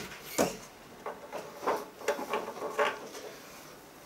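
A series of light knocks and rubs on wood, about eight short ones, the loudest just under half a second in, as a wooden cabinet is handled.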